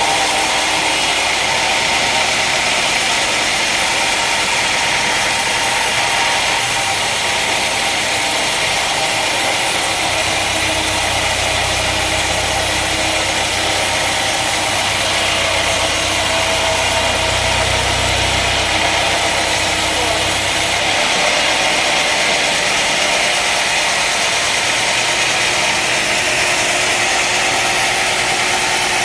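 Woodworking machinery running steadily in a workshop, an even mechanical noise with no clear strokes. A low hum joins it about ten seconds in and drops out a little after twenty seconds.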